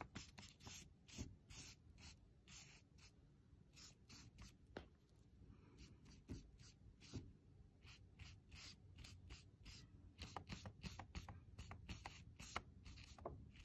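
Faint, repeated swishes of a wide flat watercolor brush stroking wet paint across watercolor paper, two or three strokes a second.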